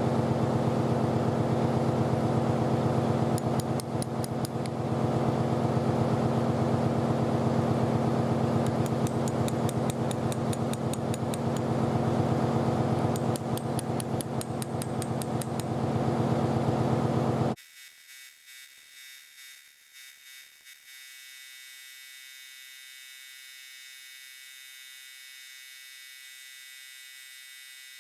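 Bosch GDR18V-LI cordless impact driver running, with three bursts of rapid hammering from its impact mechanism. It stops suddenly about two-thirds of the way in, leaving a faint steady electrical hum.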